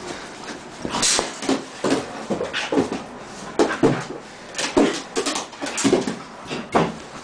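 A husky-type puppy whimpering in short, repeated whines, about one or two a second, with scattered clicks and knocks from its play.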